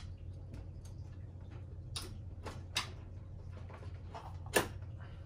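Irregular light clicks and taps of animatronic parts being handled and fitted together, with the loudest click about four and a half seconds in, over a low steady hum.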